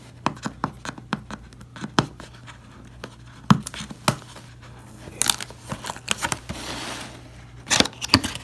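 A seal sticker being picked at and peeled off a cardboard box, with fingernails scratching and tapping on the cardboard. There are many sharp clicks throughout, and a longer stretch of peeling and tearing about five to seven seconds in.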